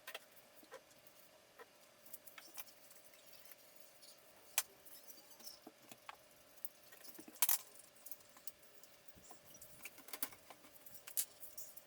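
Light, irregular clicks and taps of small hard parts being handled, with a few sharper knocks about four and a half, seven and a half and eleven seconds in, over a faint steady hum.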